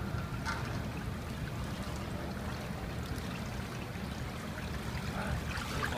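Water sloshing and trickling as a plastic ATV body panel is pushed down through the film into a hydrographic dip tank, over a steady low rumble.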